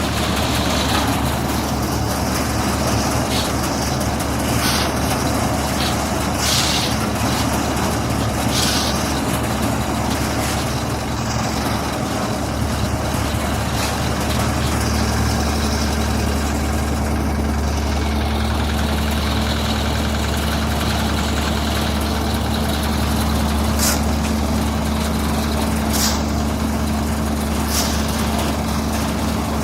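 A heavy engine running steadily, with a few short hisses over it.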